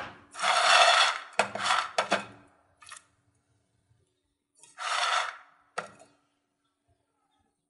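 Raw peanuts rattling and sliding against the inside of a metal bowl as the bowl is shifted, in several short bursts in the first two seconds and again about five seconds in, with a sharp click just after the last one.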